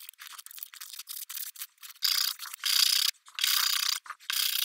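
Sandpaper rubbed by hand over a small piece of pallet wood: quick short strokes at first, then longer, louder back-and-forth strokes from about two seconds in.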